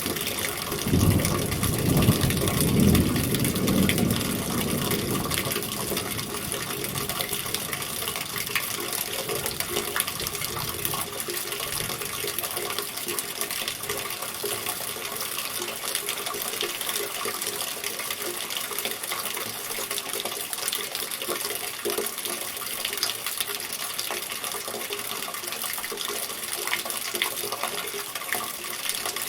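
Steady rain falling, a dense even hiss of countless fine droplet ticks. A deeper rumble swells under it in the first few seconds, then fades, leaving the rain alone.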